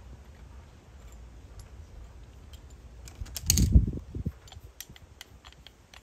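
Small metal clicks and clinks of brass plumbing fittings and an adjustable wrench being handled as a threaded brass joiner is fitted to a shower mixer body. There is one loud thump a little past the middle, followed by a scatter of sharp clicks.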